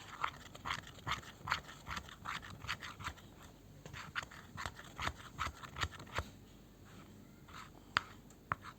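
Slime mixture of foam glue being stirred in a bowl: irregular scraping strokes, a few a second, thinning out about six seconds in, with a couple of sharper clicks near the end.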